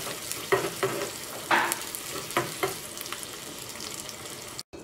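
Finely chopped shallots sizzling in hot ghee in a small pan, frying toward golden. A metal spoon stirs them, scraping and knocking against the pan several times. The sizzle cuts off abruptly just before the end.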